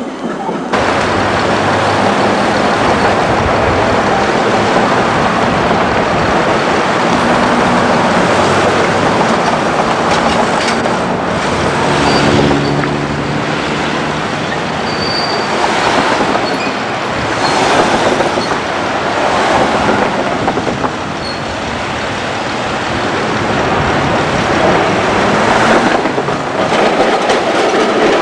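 Melbourne W-class tram running along street rails, with steady wheel-on-rail noise and a few brief high squeals from the wheels around the middle.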